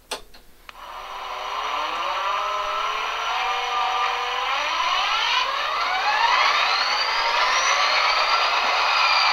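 HO-scale Athearn Genesis SD45 model's onboard sound decoder playing the startup sequence of its EMD 20-cylinder diesel, heard through the model's small speaker. A couple of sharp clicks come first, then the engine sound climbs steadily in pitch for several seconds as it spools up, and settles into a steady run near the end.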